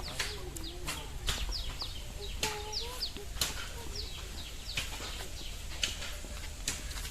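Small birds chirping in short, quick notes that fall in pitch, over frequent sharp clicks and crackles, with a few wavering whine-like calls about a second in and again around the middle.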